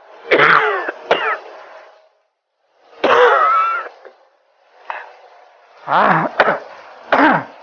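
A man coughing in several separate harsh bouts, some with a voiced groan, as the persistent cough of tuberculosis.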